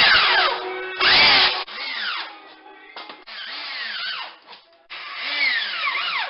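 Power drill driving drywall screws through a metal drywall corner bead: about five short runs of the motor, its pitch rising and falling as the trigger is squeezed and let off, the first two runs loudest.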